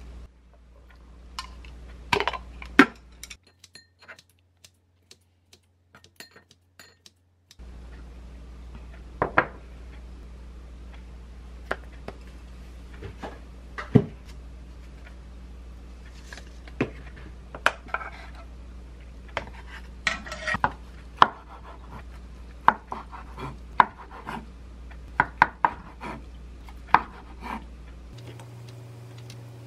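Kitchen utensils tapping and clinking against dishes: chopsticks and a metal food container knocking on a ceramic bowl, as scattered sharp knocks.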